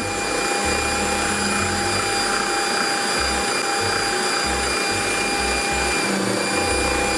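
Bosch stand mixer's motor running steadily, driving a pasta-roller attachment as folded dumpling dough is fed through the rollers. There is a constant whir with a low rumble that swells and dips as the dough passes.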